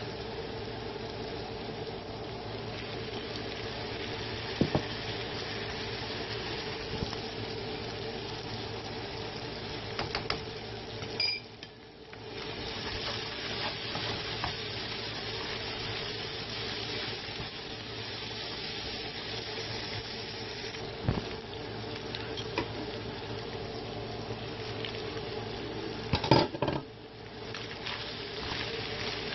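Vegetables stir-frying in an oiled pan: a steady sizzle, with the wooden spatula scraping and knocking against the pan now and then. The loudest knocks come in a cluster near the end, and the sizzle drops away briefly twice.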